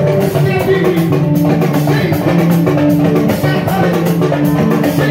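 A live band playing, with electric guitar and drums over sustained low notes and a steady percussion beat.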